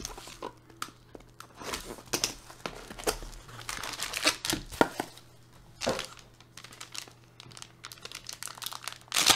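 Handling a small cardboard trading-card box and pulling a black plastic pouch out of it: irregular crinkling, scraping and tapping of cardboard and plastic, with a louder crinkle near the end.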